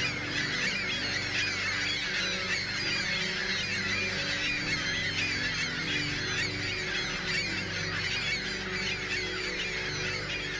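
A large flock of ring-billed gulls calling together, a continuous chorus of many overlapping high, wavering cries with no single call standing out.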